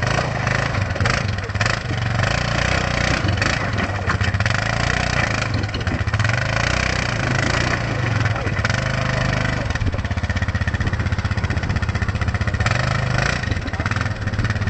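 Quad bike (ATV) engine running under load as it climbs over rocks, its revs rising and falling.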